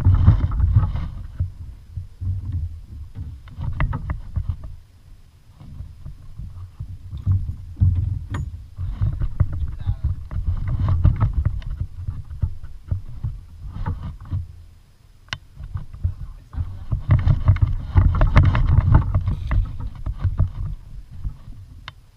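Water and wind noise aboard a fishing kayak: irregular surges of low rumble with splashing, loudest near the start and again near the end.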